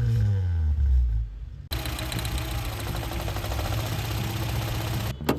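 Car engine just after starting, its revs falling from the start-up flare for about a second and a half. Then an abrupt cut to the engine idling steadily, with a sharp click near the end.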